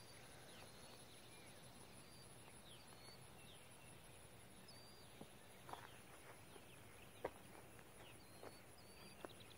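Near silence in open air, with faint short bird chirps now and then and a few faint sharp clicks in the second half, the loudest about seven seconds in.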